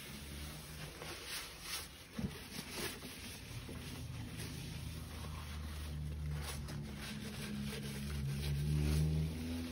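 Brown paper crinkling and rustling in gloved hands, in short irregular scrapes, over a low steady hum that grows louder near the end.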